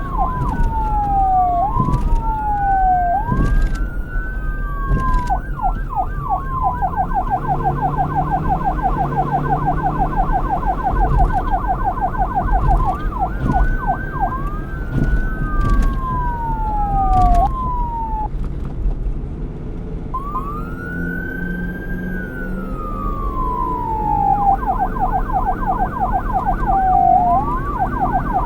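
Police car siren switching between its wail and yelp tones. Slow rising and falling wails a few seconds each alternate with stretches of rapid yelping, with a brief break in the siren a little past the middle. A low steady rumble runs underneath.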